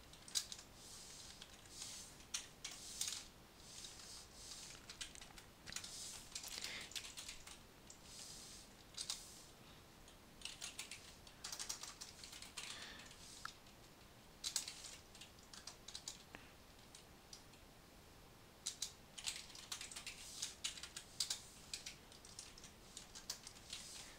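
Computer keyboard being typed on in short runs of keystrokes with pauses between, faint and close.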